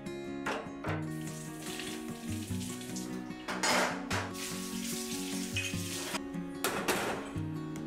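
Tap water running into a stainless steel kitchen sink and over metal gas-burner stands being rinsed by hand, with louder surges of splashing about halfway through and near the end. Soft background music plays under it.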